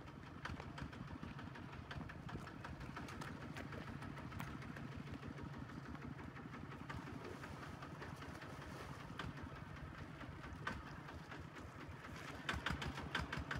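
HINOTA two-wheel walking tractor's single-cylinder diesel engine running steadily with a rapid putter as it drives its trailer along a dirt track. It grows louder near the end as it comes closer, with added clattering.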